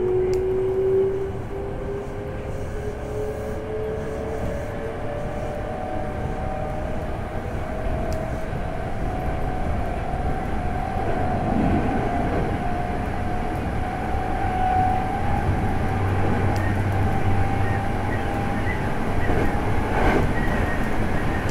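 Toyo Denki GTO VVVF inverter drive of a Hankyu 8300 series train heard from inside the car: a whine of several tones climbing slowly and steadily in pitch as the train gathers speed, over the rumble of the wheels on the rails.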